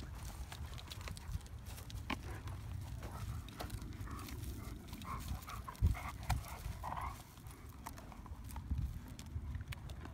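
Dogs playing tug of war with a long stick: paws scuffling and crunching on wood chips and the stick knocking and scraping, with a few short dog noises in the middle and one sharp knock about six seconds in.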